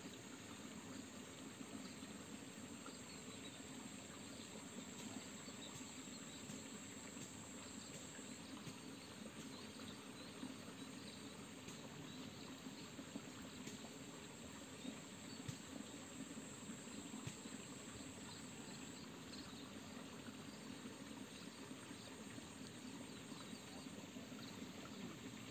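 Faint outdoor ambience: the gentle trickle of a small stream, with a high, steady insect drone that fades in and out.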